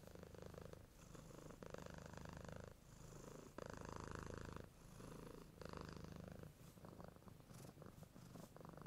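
Faint Makita cordless compact router with a roundover bit, purring like a kitten as it rounds over a board edge. Its steady hum swells and drops in stretches of about a second as the bit cuts and eases off.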